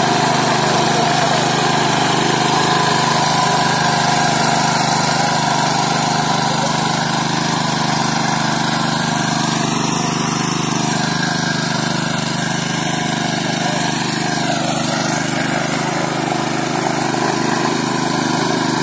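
Agricultural tiller engine running steadily, its pitch shifting briefly about halfway through and again a few seconds later.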